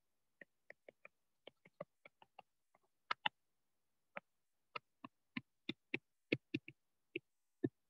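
Stylus tapping and clicking against a pen tablet or screen while words are handwritten: a quick, irregular run of faint clicks, a few per second.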